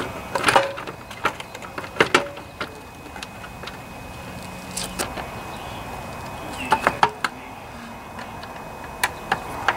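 Plastic top cover of a Briggs & Stratton lawnmower engine being fitted back into place by hand: irregular clicks, knocks and rattles of plastic against the engine, with a cluster of three knocks about two-thirds of the way through.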